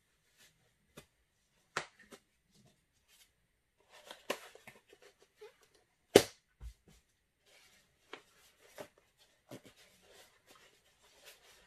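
Handling noise: scattered small clicks and knocks with short spells of rustling, with one sharp knock about six seconds in the loudest.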